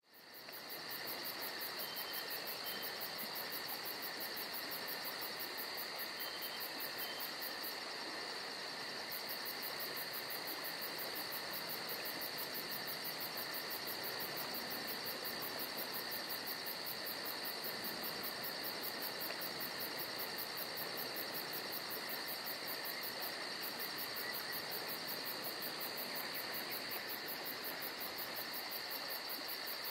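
Steady insect chorus fading in at the start. Several unbroken high-pitched trills sound together, with a very high, fast pulsing above them.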